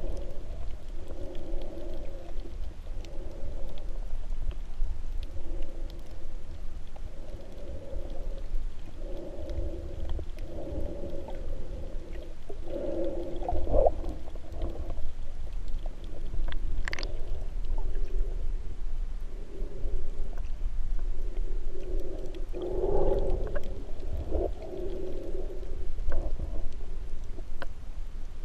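Muffled underwater sound picked up by a camera in its waterproof housing: a low water rumble with a droning hum that comes and goes every second or two. It swells louder about halfway through and again near the end, with a brief sharp tick just past the middle.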